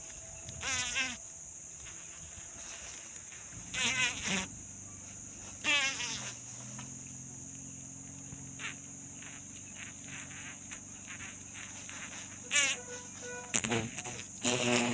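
Steady high-pitched insect drone, with several short animal calls breaking in over it.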